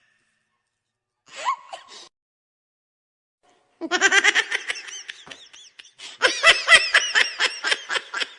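Person laughing hard in rapid, high-pitched bursts of several a second, starting about four seconds in after a short sound and a silence, with a brief break near six seconds.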